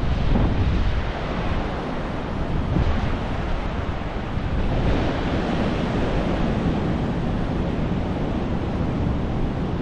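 Ocean surf breaking and washing up the beach in a steady roar that swells and eases, with wind buffeting the microphone.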